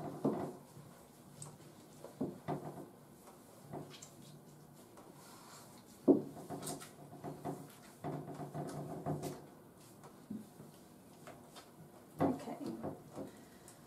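Handling noise from hands working a wet Shih Tzu's coat in a plastic bathing tub: scattered soft knocks and rubbing at irregular moments, with one sharper knock about six seconds in.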